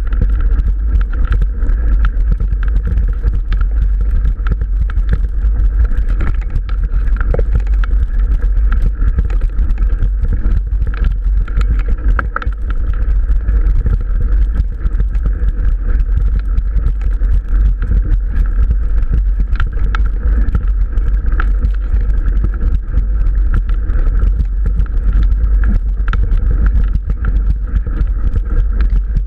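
Mountain bike rolling over a rough, overgrown dirt track, with a steady heavy low rumble of wind buffeting the action camera's microphone and many small clicks and rattles from the bike and grass brushing past.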